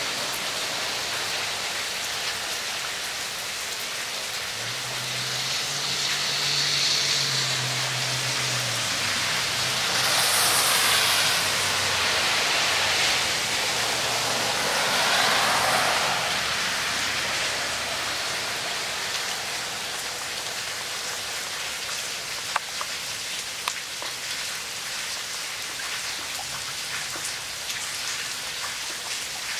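Steady rain pattering on wet rocks, leaves and running water. It swells louder for several seconds before settling back, with two sharp taps later on.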